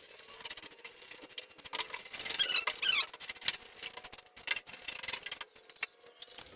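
Irregular scraping and clicking of hand work on a car's boot lid, with a few short high squeaks about two to three seconds in.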